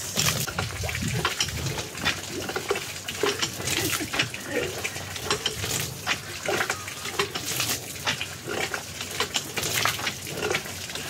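Jetmatic manual water pump being worked by hand, water splashing from the spout amid irregular knocks and clatters from the handle and piston. With its damaged rubber cup repaired, the pump draws water again and works stiff, like new.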